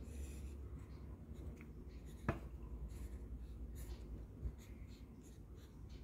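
Camlin Exam mechanical pencil's 2 mm 2B lead scratching across notebook paper in short drawing strokes, with one sharp tap about two seconds in.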